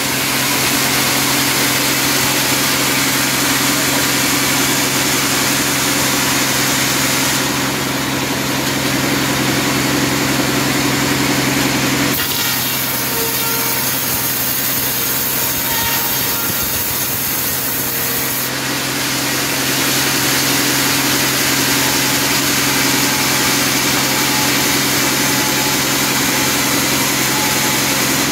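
Sawmill band saw running steadily and ripping a teak log, a continuous machine hum under the hiss of the blade cutting through the wood. The cutting noise eases for several seconds around the middle, then picks up again.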